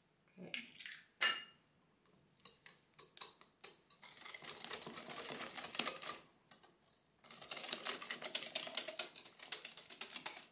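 Eggs and sugar being beaten by hand in a mixing bowl: a few separate knocks, then two long spells of fast clicking strokes against the bowl.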